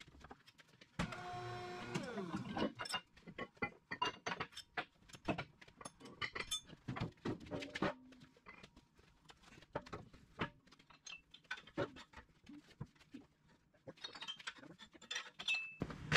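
Scattered light clinks, taps and knocks of steel tools and parts being handled, at no steady rhythm. A short whine comes about a second in.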